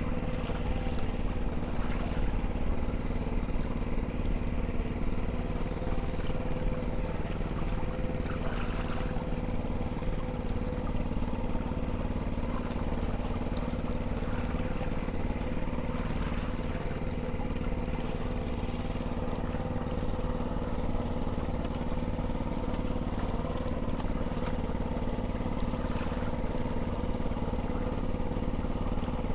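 A fishing boat's small engine running steadily at an even speed.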